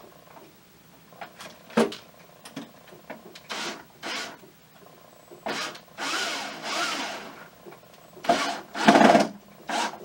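Cordless drill driving screws into a wooden mounting board in three short runs, the motor whine rising and falling as the screws go in. The last run is the loudest, with a few light clicks between the runs.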